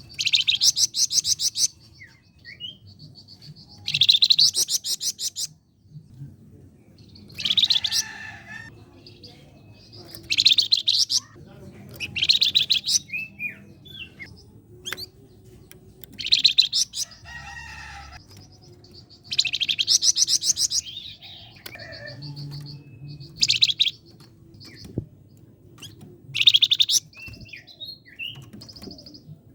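Flamboyan songbird singing in full voice: loud, rapid rattling bursts of about a second each, repeated every three to four seconds, with thin, steady high whistles between them. These are the fast 'tembakan' and tight 'besetan' phrases that bird keepers use as masteran song.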